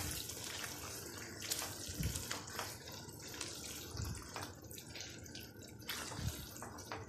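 Boiled eggs and potatoes frying in masala in a nonstick wok: a steady sizzling hiss as a spatula stirs them, with soft knocks of the spatula about every two seconds and a few small clicks.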